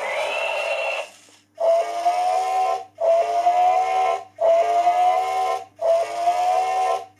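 A toy robot's small speaker playing a repeating electronic whistle effect: a tone gliding up over about a second, then four steady tones of about a second each with short breaks between them.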